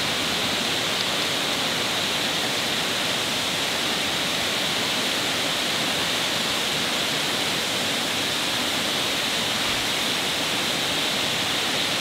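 Water rushing over a small man-made waterfall: a steady, even hiss.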